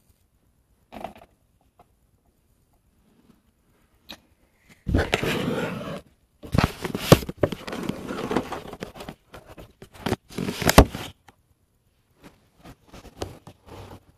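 Handling noise from the camera being picked up and moved: rubbing and rustling against the microphone with several sharp knocks, in two stretches through the middle, then scattered small clicks near the end.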